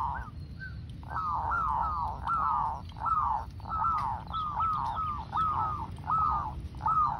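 Zebra doves calling: a quick run of short rising-and-falling notes, in clusters of two or three about every half second, starting after a brief pause about a second in.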